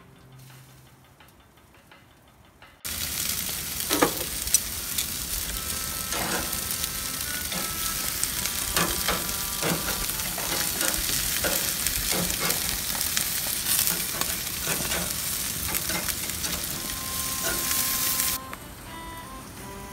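Chicken yakitori skewers sizzling on a hot gas grill, with metal tongs clicking against the grate as the skewers are turned. The sizzle starts abruptly about three seconds in and cuts off suddenly near the end.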